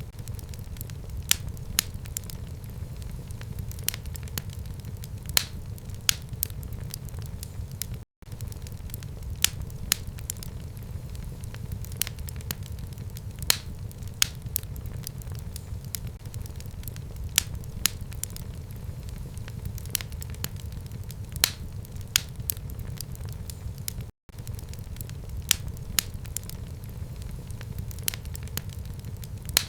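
Fire burning in a home fireplace: a steady low rumble with frequent sharp crackles and pops. Twice the sound cuts out for a split second.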